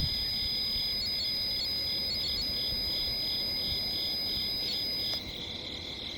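REM pod alarm sounding a steady high-pitched tone, which cuts off suddenly about five seconds in. Crickets and frogs chirp steadily underneath.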